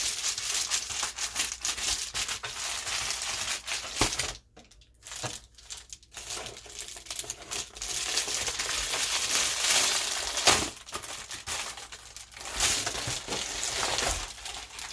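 Package wrapping being torn open and handled, with continuous crinkling and rustling that pauses briefly twice about four to six seconds in.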